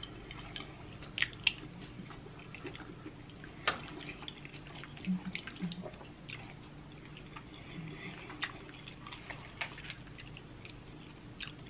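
Close-up wet chewing and mouth smacks from eating shrimp alfredo pasta: scattered short, sharp clicks and squelches over a faint low hum.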